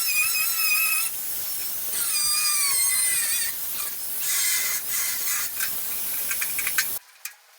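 Rotary power tool working rust off the steel radiator support. It gives a high, wavering squeal in two stretches, then a rougher scraping with rapid clicks, and stops abruptly near the end.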